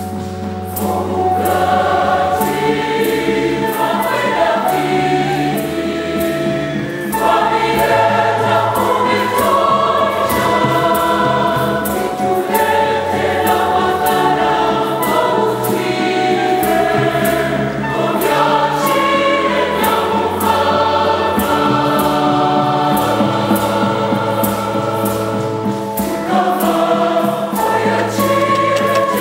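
Large mixed church choir singing a hymn in several parts, over sustained low bass notes and a steady percussion beat of about two strokes a second.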